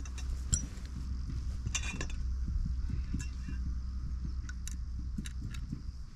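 Light metallic clicks and taps as tent pegs are handled and set at the corner of a ground sheet, a small cluster about two seconds in and several more near the end, over a steady low rumble.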